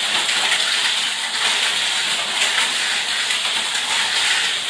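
Two Tamiya Mini 4WD cars racing around a plastic track: a steady, high-pitched whir from their small electric motors and gears running at full speed.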